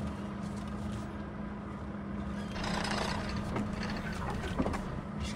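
Diesel engine of a Volvo FH log truck running with a steady hum, with a short hiss about two and a half seconds in and a couple of light knocks near the end.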